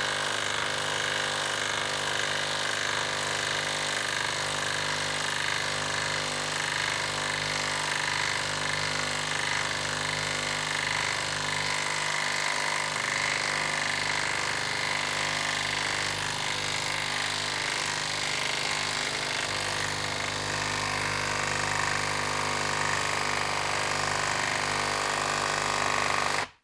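Milwaukee M12 Stubby 1/2-inch cordless impact wrench hammering steadily on speed 3 as it drives a 6-inch lag screw into end-grain wood, cutting off suddenly near the end.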